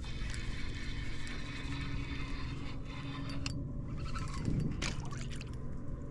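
Small water lapping and trickling against the hull of a drifting boat, over a low steady hum.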